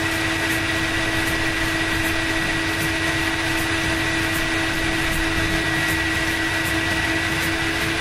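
Motorised elevator of a toy car parking garage running: a small electric motor and its gears whir steadily with a constant whine as the lift carries a toy car down.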